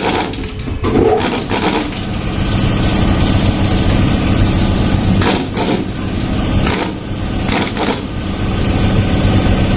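Yamaha FZ V3's single-cylinder engine running at idle, with several sharp knocks over it. This is a bike brought in for a grinding noise when the engine is hot, which the mechanic suspects comes from a bearing.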